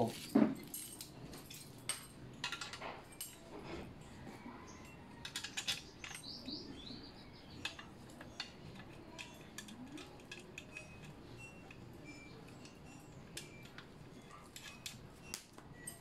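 Scattered light metallic clicks and clinks as bolts, nuts and the metal bike rack's frame are handled and fitted by hand.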